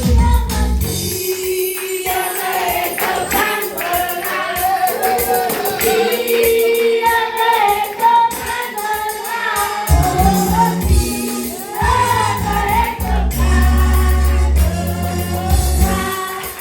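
Choir singing a gospel song, with a deep bass accompaniment coming in about ten seconds in.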